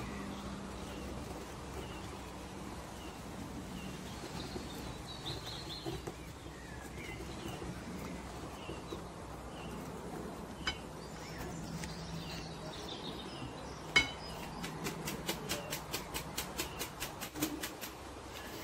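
Soft background hiss with faint bird chirps. About two-thirds through there is a sharp knock, then rapid, even clicking, about five a second, from the utensils working at a glass bowl of batter.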